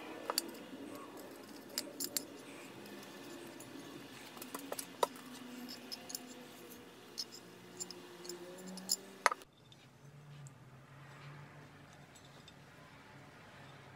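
Scattered sharp clicks and taps from a water bottle being handled and turned over in the hands. The sound cuts off abruptly about nine seconds in, leaving only a faint low hum.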